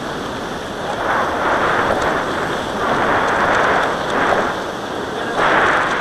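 Surf washing up the beach mixed with wind: a steady hiss that swells and fades about four times.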